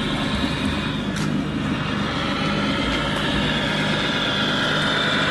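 1/14 scale RC MAN tipper truck driving slowly over gravelly dirt: a steady low engine drone with a higher whine that rises and falls slightly above it, and one sharp click about a second in.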